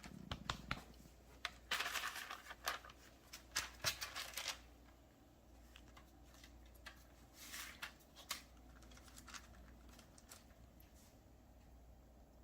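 Handling of crescent roll dough and its packaging: bursts of rustling and tearing with small clicks and taps, loudest a couple of seconds in, then a shorter burst later on, between stretches of low room hum.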